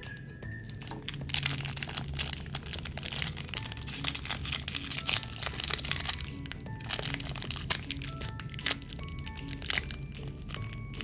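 Plastic snack wrappers crinkling and crackling as packaged cakes and cookies are handled and unwrapped, densest through the middle, with a few sharp cracks later on. Soft background music plays underneath.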